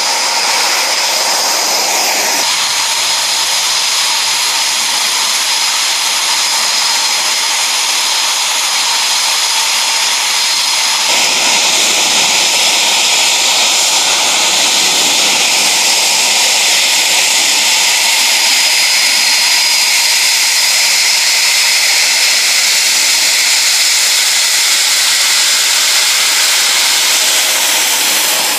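Eurofighter Typhoon's EJ200 jet engines running at taxi power: a loud, steady high whine over a rushing hiss. The sound shifts abruptly twice, about 2.5 and 11 seconds in.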